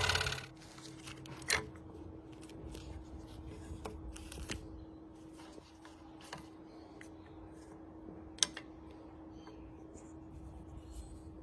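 A scroll saw's motor winds down and stops in the first half second. Then a faint steady hum, with scattered light clicks and taps of small wooden pieces being handled, the sharpest about 1.5 s and 8.5 s in.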